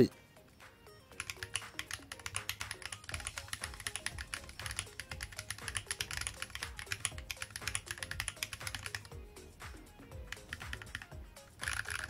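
Fast typing on a handwired 42-key split mechanical keyboard with tactile switches, cherry-profile keycaps and a half acrylic frame: a rapid, uneven clatter of key presses starting about a second in. Background music plays under it.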